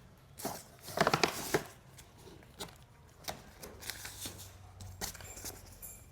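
Rustling and clicking of something being handled, with a cluster of louder rustles about a second in and scattered clicks after.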